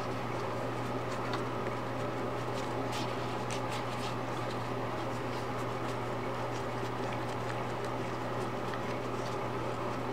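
A steady low hum, with faint soft clicks here and there from hands patting and shaping sticky tapioca dough into a flat round.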